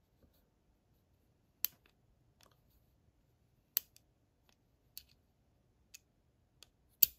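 SIG P320 trigger bar disconnect clicking as the fire control unit is slid in and out of battery in the slide: the disconnect springs up into the slide's notch. About six short metallic clicks, spaced a second or so apart, the loudest near the end.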